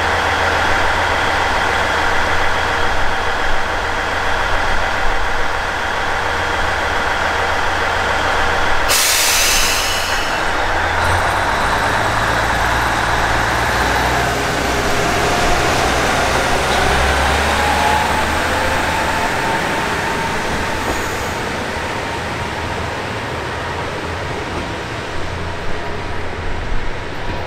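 Diesel engines of a two-car KiHa 110 series railcar train running steadily at the platform. About nine seconds in there is a short sharp burst of air hiss. The engine note then rises in pitch as the train pulls away, slowly getting quieter as it draws off down the line.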